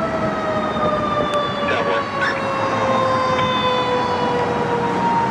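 Fire truck's siren sounding one long tone that slowly falls in pitch as it winds down, over the rumble of traffic.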